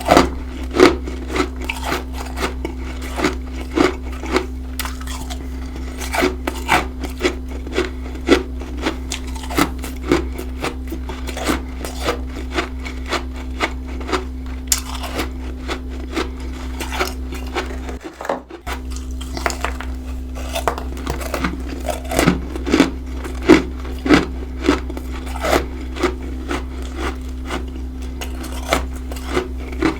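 Close-miked crunching and chewing of powdery freezer frost: a continual run of sharp, crisp crunches, irregular and often several a second. A steady low hum runs underneath and drops out briefly a little past halfway.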